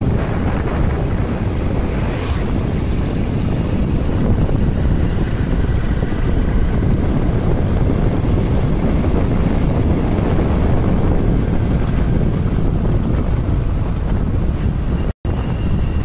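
Wind rushing over the microphone of a moving vehicle, a loud, steady, low rumble that cuts out for a moment near the end.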